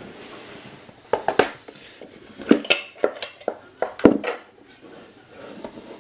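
Small metal lock-gutting tools clinking and clattering as they are picked up and handled, a run of sharp knocks and clinks about a second to four seconds in.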